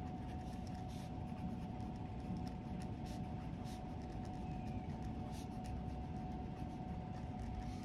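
Felt-tip pen writing on a paper workbook page: faint, short scratching strokes over a steady hum.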